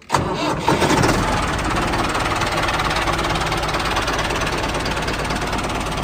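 Tractor engine starting abruptly and then running steadily with a fast, even chugging.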